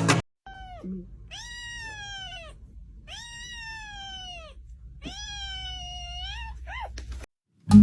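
A domestic cat meowing: three long, drawn-out meows that each rise slightly and then fall in pitch, with a short call at the start and another brief one near the end.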